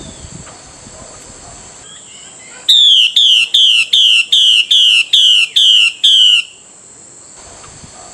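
Female Chinese hwamei giving its call to a male: a loud run of about ten short notes, each falling in pitch, roughly three a second, starting a little under three seconds in and stopping after about four seconds.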